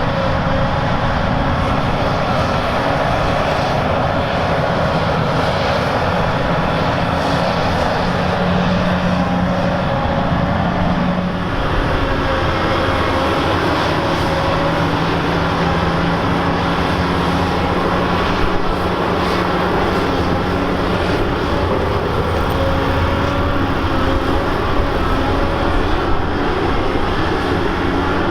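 Heavy diesel engines of a Volvo EC950F mass excavator and A60H articulated dump trucks running steadily under load. The engine pitch changes about eleven seconds in and then holds.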